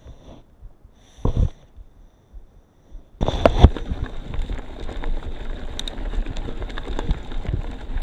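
Mountain bike rolling down a rough trail: nearly quiet at first with a single knock about a second in. About three seconds in a loud jolt sets off continuous rumbling and rattling of tyres and frame over the ground.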